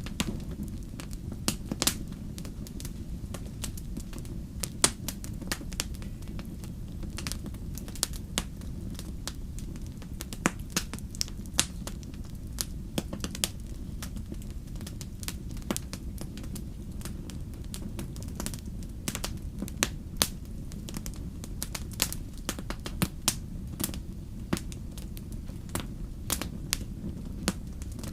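Wood fire burning in a fireplace, crackling with frequent sharp, irregular pops over a steady low rumble.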